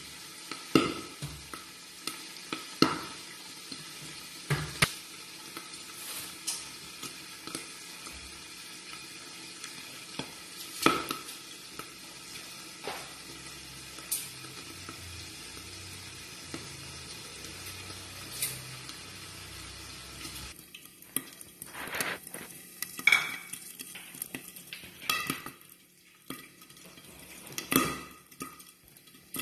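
Pork sizzling as it fries in a lidded non-stick pan, with sharp clinks of a metal spatula and the glass lid against the pan every few seconds. About two-thirds of the way in the steady sizzle drops away, leaving scattered clinks and knocks.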